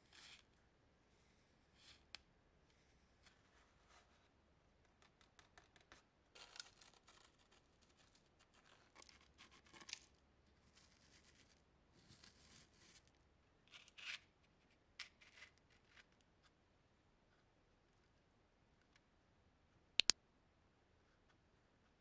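A brush sweeping dry, crumbly dirt across a wooden tabletop: short, faint scratchy rustles, stroke after stroke. A sharp double click sounds near the end.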